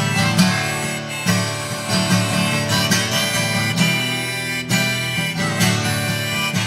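Background music: an instrumental break in a folk song, with a harmonica melody over strummed acoustic guitar.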